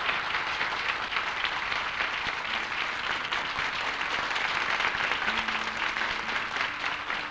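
Studio audience applauding, a dense, steady patter of many hands clapping. About five seconds in, a few low, held notes come in faintly under the clapping.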